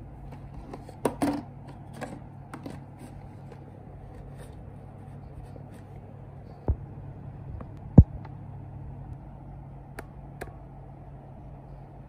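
Hands handling a film camera's clear plastic blister pack: crinkling and clicks about a second in, then scattered taps and a sharp knock about eight seconds in, over a steady low hum.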